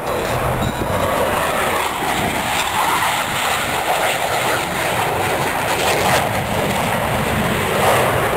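Aircraft engine noise, steady and loud.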